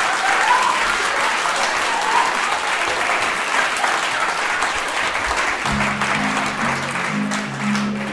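Audience applauding. About six seconds in, music starts beneath the applause with a line of low, held notes.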